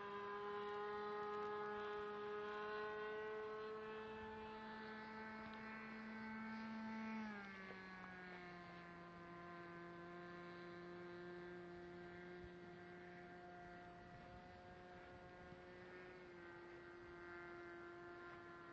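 Radio-controlled model Cherokee 140 airplane's engine droning in flight, faint and steady; its pitch creeps up, drops sharply about seven seconds in, and steps down a little again near the end.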